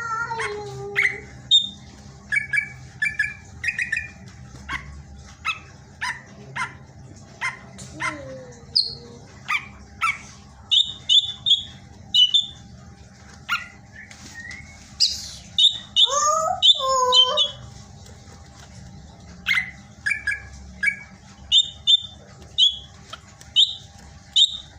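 Cucak ijo (green leafbird) singing loudly: a varied run of sharp, high chirps and quick repeated notes, with a few lower whistles that slide down in pitch about halfway through.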